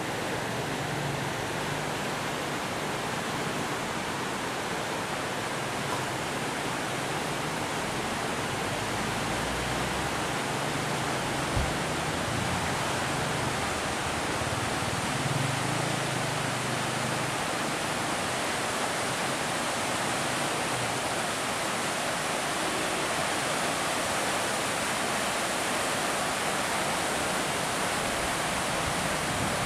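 Water rushing through the gates of a river barrage and churning white below it: a steady, unbroken rush.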